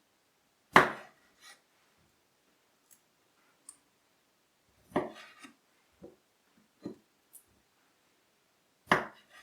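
Knife cutting seedless grapes in half one at a time on a cutting board: three sharp knocks of the blade striking the board about four seconds apart, with fainter taps and clicks between.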